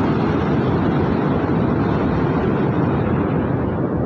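Floodwater pouring through the open sluice gates of a dam: a steady, heavy rush of water, strongest in the low range.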